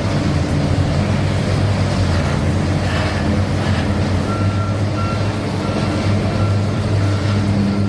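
Heavy machine's engine running steadily, with a backup alarm beeping about twice a second from about four seconds in.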